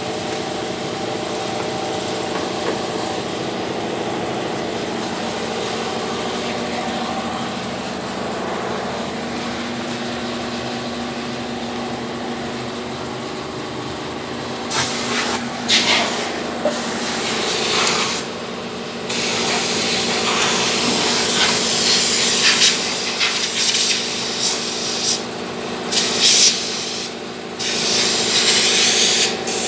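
Land Rover engine idling steadily. From about halfway, loud hissing bursts of a spray jet start and stop over it, some lasting a second or more.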